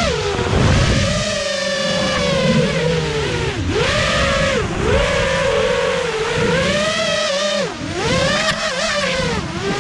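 FPV quadcopter's brushless motors and propellers whining, the pitch swooping up and down every second or so as the throttle changes. The whine falls away at the very end as the drone comes down to land.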